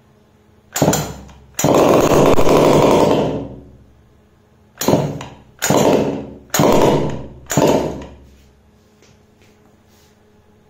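The recoil pull-starter of a 49cc two-stroke mini dirt bike engine is yanked about six times, each pull a short whirring rasp. The second and loudest lasts about two seconds and fades out. The engine does not keep running after the last pull.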